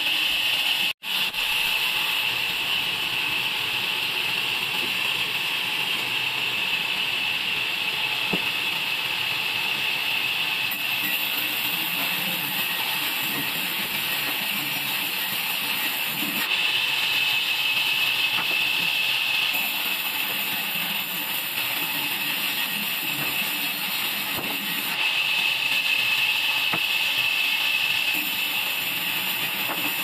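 Band saw resawing a wooden plank into slats: a steady high hiss of the blade running through the wood, louder in a few stretches, with a momentary break about a second in.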